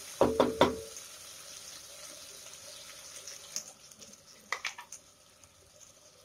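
A wooden spatula knocks three times on the rim of a stainless steel pressure cooker, the metal ringing briefly. Then onions, tomatoes and green chillies fry in oil in the cooker with a soft sizzle that fades, with a few light clicks from the spatula later on.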